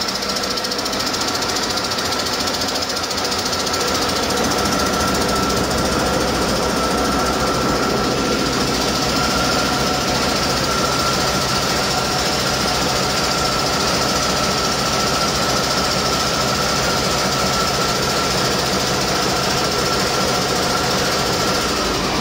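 Used 2016 Mack MP8 inline-six diesel engine running steadily on a test stand, out of its truck, with a steady high whine over the engine's running.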